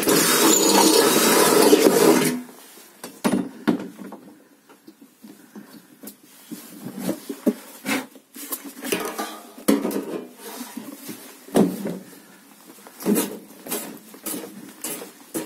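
Cordless drill boring through a sheet-metal box, running loud for about two seconds and then stopping abruptly. It is followed by scattered knocks and clatter of metal parts and tools being handled.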